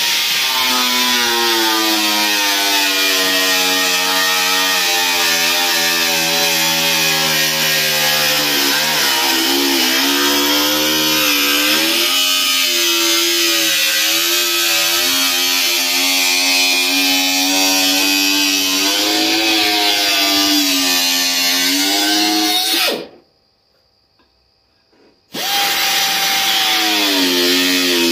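Pneumatic cut-off wheel cutting through a Corvette's firewall: a loud, high whine with a bright hiss, its pitch sagging and recovering as the disc bites into the metal. It stops suddenly near the end, then starts up again after about two seconds.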